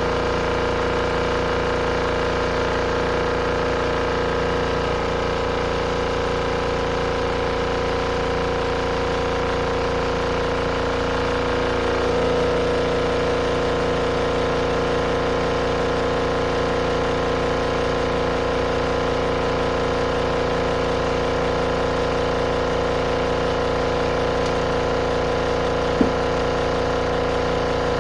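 RV washing machine running its final spin cycle: a steady motor hum made of several steady tones. The tone shifts a little about twelve seconds in, and there is one short click near the end.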